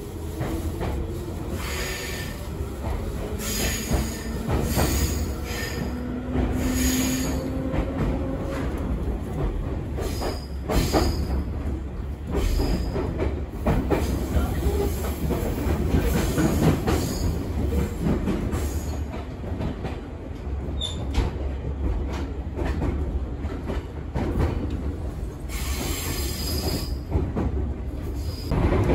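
Electric commuter train heard from inside the carriage as it pulls out of a station and picks up speed. A steady running rumble carries wheel clatter over the rail joints and brief high wheel squeals, with a low hum that rises in pitch over the first several seconds.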